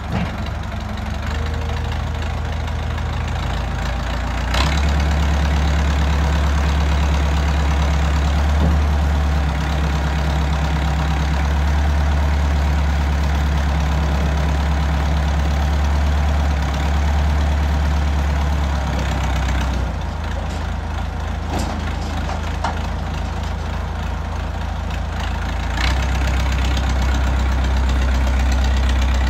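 Massey Ferguson EX50 loader tractor's engine running steadily. It grows louder about four and a half seconds in, eases back about twenty seconds in, and comes up again near the end, with a short knock as it rises.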